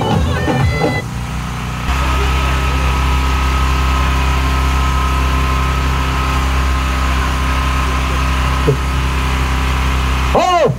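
Music cuts off about a second in, followed by a steady low engine hum, like a vehicle idling, that runs almost to the end. A voice starts just before the end.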